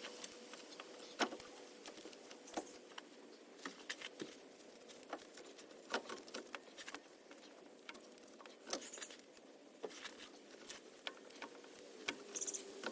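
Faint, irregular clicks and taps as a stuck wiring plug on a Ford F-150 alternator is worked at by hand to get it off.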